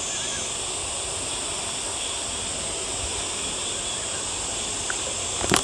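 Water sloshing and splashing around a person wading waist-deep and clearing lily pads and weeds with a long-handled cutting hook. A steady high insect chorus runs underneath, and a few sharp knocks come near the end.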